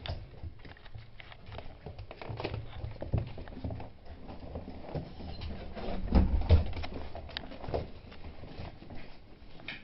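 Beagle puppies scuffling and playing on a hardwood floor: their claws and paws patter and tick irregularly, with a couple of louder bumps about six seconds in.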